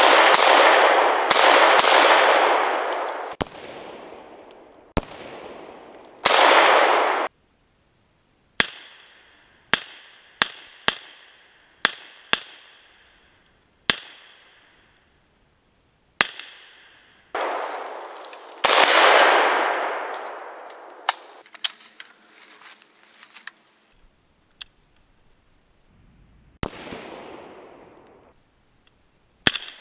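Arsenal SLR-104FR semi-automatic rifle in 5.45x39mm firing about twenty single shots at an uneven pace, some in quick strings. After several shots a long loud echo dies away over a second or more.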